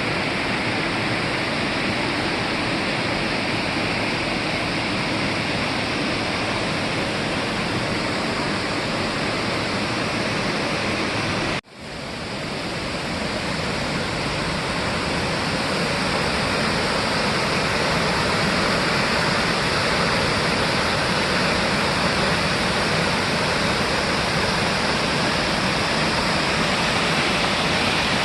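Waterfall: a steady, full rush of falling water. It breaks off briefly about twelve seconds in and swells back.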